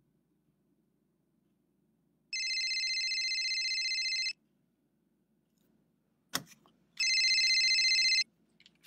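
Telephone ringing with a trilling electronic ring, twice: a ring of about two seconds, then a shorter one that is cut off. A single sharp knock comes shortly before the second ring.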